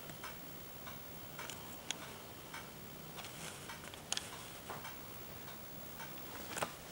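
Faint, irregularly spaced small clicks and ticks over quiet room tone.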